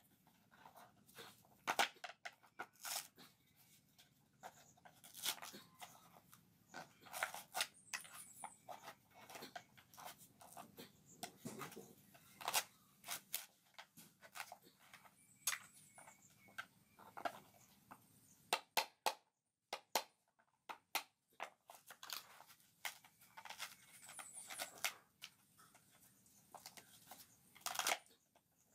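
A small metal tool scraping and gouging the fibrous inside of a hollowed coconut fruit: irregular crunching, rasping strokes with short pauses between them.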